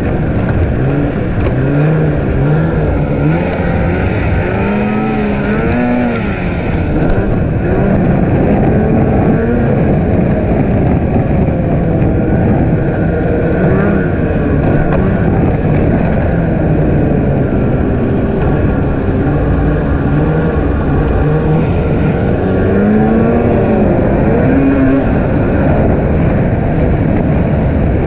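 Snowmobile engine running at speed, its pitch rising and falling as the throttle is opened and eased off several times, with a steady rumble of the sled underneath.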